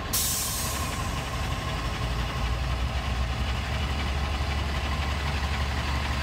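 Bus diesel engine idling with a steady low rumble, and a short burst of hiss in the first second.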